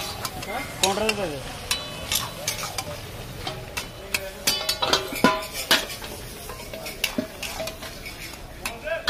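Mutton pieces sizzling in an iron karahi wok while a metal spatula stirs and scrapes them, with many sharp clanks of metal on the wok, some ringing briefly.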